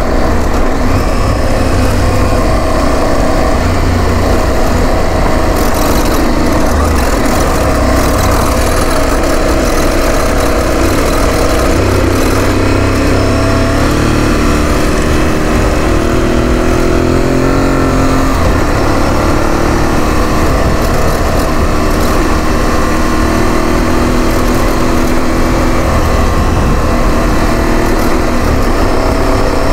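Aprilia Tuareg 660's parallel-twin engine running steadily while the motorcycle is ridden over a gravel and sand track. A little past halfway the engine pitch briefly rises and falls as the speed changes.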